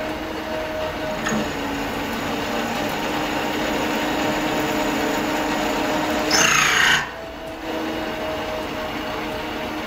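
Bernardo metal lathe turning a steel bar: the motor and gearing run with a steady hum under the hiss of the tool cutting. The cut gets louder and harsher for about half a second around six seconds in, then the cutting noise drops away as the tool comes off the work, and the lathe runs on.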